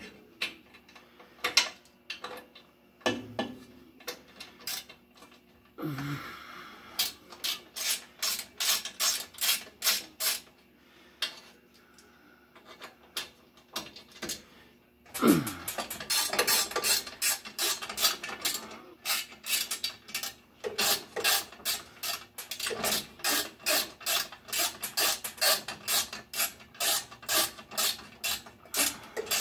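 Hand wrench working the bolts of a steel guard on a Brunswick A2 pinsetter: runs of quick metallic clicks, about three a second, with metal clinks and rubbing. The clicking stops for a few seconds twice.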